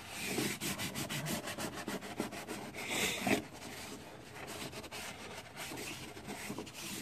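A cloth wiping and rubbing during cleanup of excess silicone, a run of small scraping clicks with a louder rub about three seconds in.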